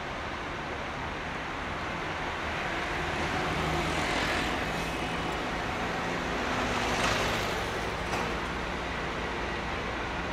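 Heavy vehicle engine noise with a steady low hum, swelling louder about four seconds in and again about seven seconds in, with a short knock just after.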